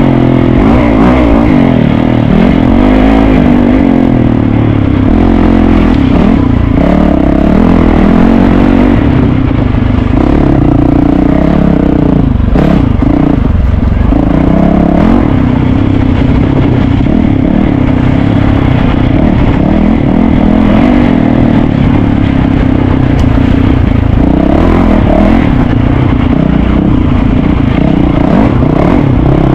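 Dirt bike engine running hard without a break, its pitch rising and falling again and again as the throttle is worked.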